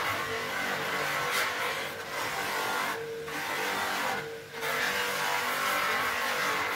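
Bench polishing machine running, with a cricket bat's willow blade pressed against its spinning cloth buffing wheel. A steady motor hum sits under a rushing friction noise, and the friction noise eases briefly twice, about three and four seconds in.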